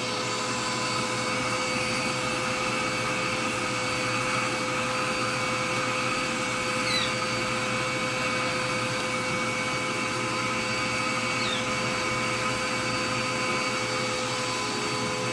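Vacuum cleaner motor running steadily, a constant rushing noise with a steady whine.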